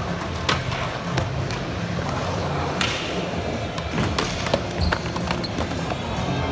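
Skateboard rolling with a steady rumble of the wheels, broken by several sharp clacks and knocks of the board.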